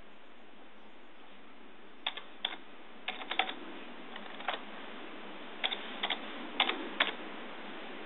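Computer keyboard being typed on: about a dozen key clicks in short quick groups, starting about two seconds in and stopping about a second before the end, over a steady hiss.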